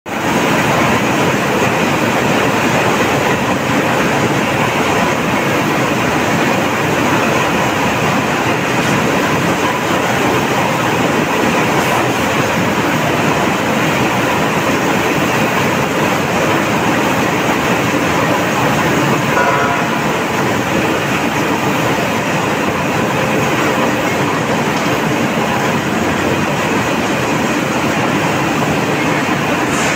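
Steel rolling mill running: a steady, loud din of roll stands and roller tables, with no pauses.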